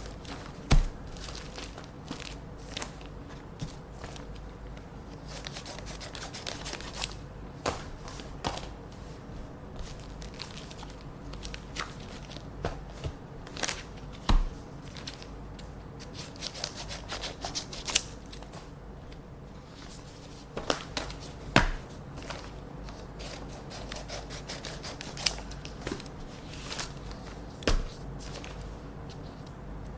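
Scissors snipping open paper envelopes, with paper crackling and rustling as the letters are handled. There are a few louder sharp knocks along the way, over a steady low hum.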